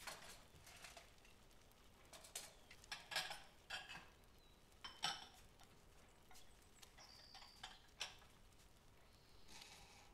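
Faint, scattered clinks and knocks of dishes and cutlery in a kitchen, a dozen or so light strikes over about ten seconds.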